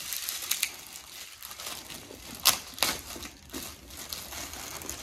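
Clear plastic bag crinkling and rustling as it is handled and pulled open around a boxed item, with two sharper crackles about two and a half seconds in.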